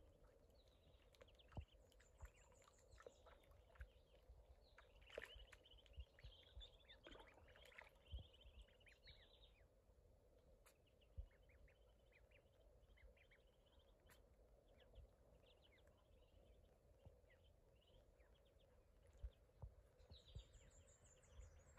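Faint high peeping of ducklings, short chirps coming in scattered runs, busiest in the first half and again near the end, over near silence.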